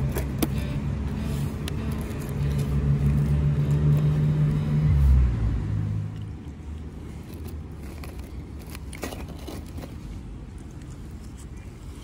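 A motor vehicle's engine running close by with a low, steady hum. About five seconds in its tone drops, and then it fades to a quieter background rumble.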